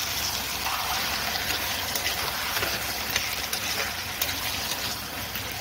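Potato and taro pieces sizzling in oil and a little water in a karahi, with a metal spatula stirring them and scattered light clicks against the pan.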